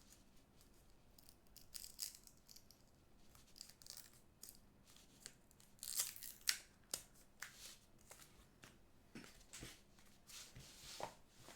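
Faint tearing, rustling and crinkling of a trading-card box's packaging being opened by hand, in short scattered bursts, the loudest about six seconds in.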